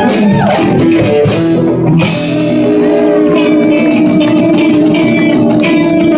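Live band playing: electric guitars over bass guitar and a drum kit.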